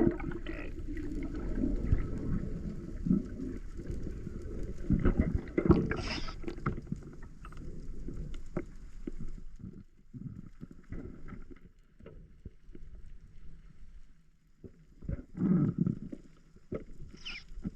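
Water sloshing and gurgling around a spearfisher's camera, with scattered knocks and a few louder swells of rushing water.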